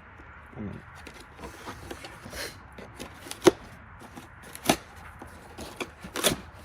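Hands handling objects: rustling and scraping with a few sharp knocks and clicks, the loudest about three and a half seconds in.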